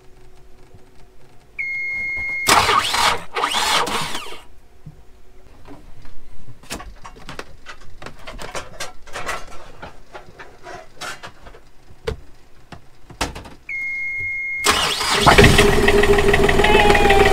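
Yanmar marine diesel being started on weak batteries helped by a portable power pack: a warning buzzer beeps for about a second, the starter cranks for about two seconds without the engine catching, then after some scattered knocks the buzzer beeps again and the engine cranks, catches and settles into a steady run for the last few seconds.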